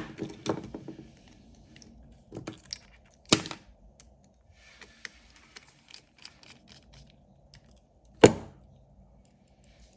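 Clicks and knocks of a rivet gun's metal parts being handled and fitted back together: sharper knocks at the start, about a third of the way in and near the end, with light clicking in between.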